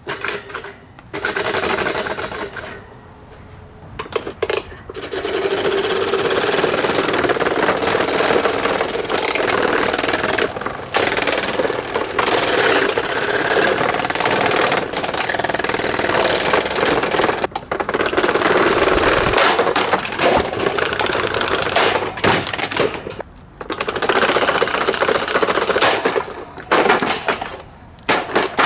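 An SMC table fan running with a loud, continuous mechanical rattle and grind, as if something is hitting or dragging inside it. The noise drops out briefly several times, then comes back.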